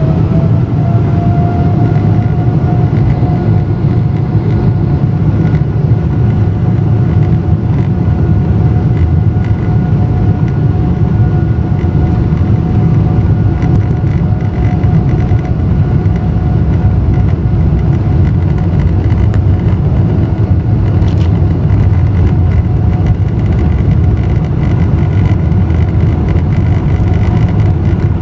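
Boeing 777-200LR's GE90 turbofan engines at takeoff power: a steady heavy rumble with a fan whine that rises in pitch over the first few seconds and then holds steady.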